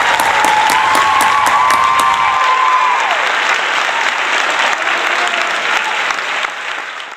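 Applause, with a held high note over it for about the first three seconds. It fades from about six seconds in and cuts off at the end.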